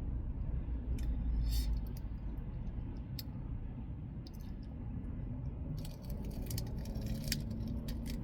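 Chewing and crunching of lettuce-leaf tacos: scattered crisp clicks that come thicker near the end, over a steady low rumble.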